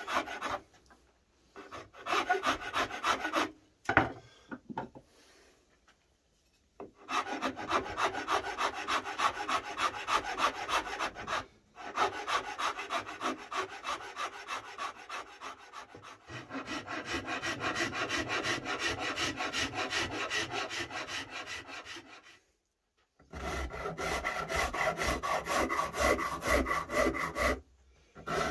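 A flat metal file rasping over the edge of a wooden guitar body, shaping the arm-carve bevel by hand: runs of quick back-and-forth strokes broken by several short pauses.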